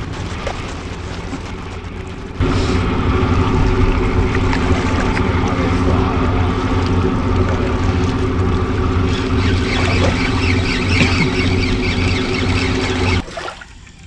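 A boat engine running with a steady, low, pulsing hum that suddenly gets louder about two and a half seconds in and cuts off just before the end.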